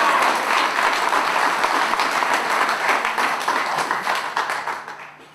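Crowd applauding, a dense patter of claps that fades away near the end.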